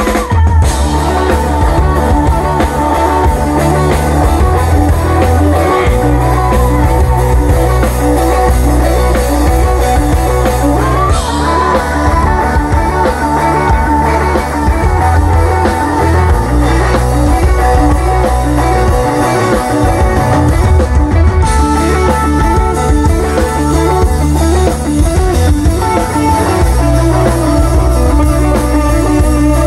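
Live rock band playing loud: electric guitars, electric bass and a drum kit, with a steady bass line underneath.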